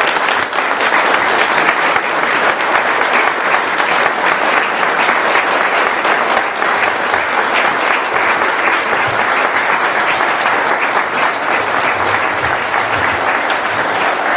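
A large crowd applauding, a dense and steady mass of clapping.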